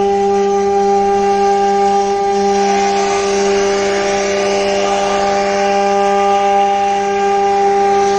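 CNC wood router spindle running with a steady, high whine while its bit cuts a groove along a wooden plank, with a hiss of cutting wood that grows louder around the middle.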